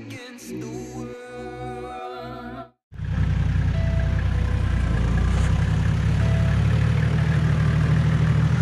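Background music with a beat that cuts off abruptly about three seconds in. A Toyota Land Cruiser's engine then runs steadily with a loud, low drone.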